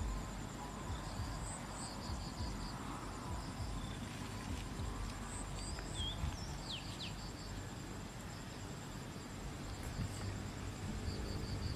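Insects chirring in the evening: a steady high trill with groups of quick cricket chirps repeating. A few short falling calls stand out about six seconds in, over a low outdoor rumble.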